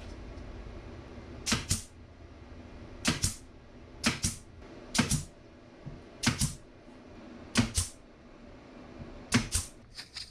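Sharp knocks or clicks, each struck twice in quick succession, repeated about seven times at roughly one- to one-and-a-half-second intervals over a low steady hum, as from a tool being worked during shelf building.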